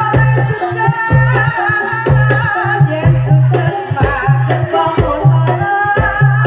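Live jaranan accompaniment: hand-drum and gong-chime percussion keeping a repeating low beat, with a wavering high melody line over it.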